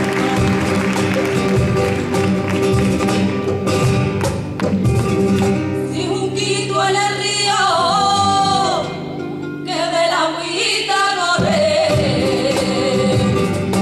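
Live flamenco-style song with Spanish guitar and cajón. About six seconds in, a woman's voice enters singing a long, wavering, ornamented phrase. The accompaniment drops out briefly near the end and then comes back in.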